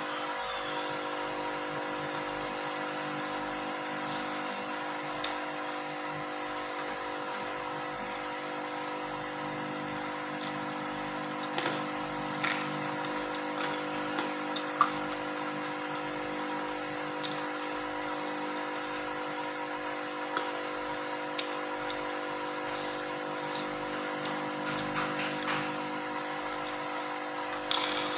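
A steady hum made of several fixed tones, with a few scattered short clicks and small wet sounds of someone eating.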